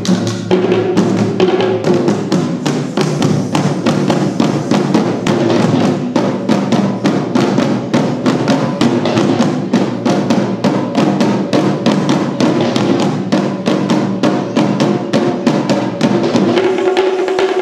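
Ensemble of Sri Lankan traditional drums (bera) played by hand in fast, dense interlocking rhythms, with a steady held tone underneath. About a second before the end the lower drumming falls away and the held tone comes forward.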